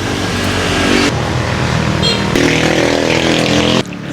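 Motorcycle engine running while under way, its note shifting in pitch as the speed changes, over a steady rushing noise. The sound cuts off abruptly near the end.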